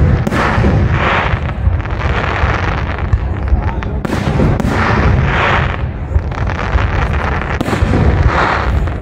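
Aerial fireworks display: a rapid, continuous barrage of booming shell bursts, with three swells of hissing crackle spreading out over it.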